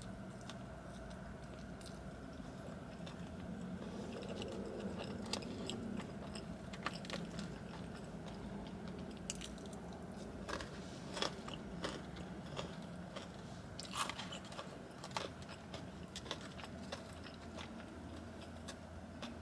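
Close-up eating sounds: biting and chewing animal-style fries, with scattered small mouth clicks and smacks, over a steady low hum.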